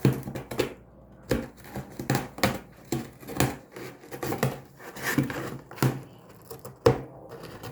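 Cardboard box being scratched and rustled by a cat: irregular scrapes and light knocks of cardboard, a couple a second.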